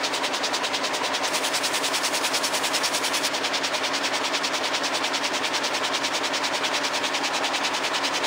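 Air-jet loom weaving denim at full speed: a fast, even clatter, many beats a second, as the reed beats up each pick, over a steady hiss.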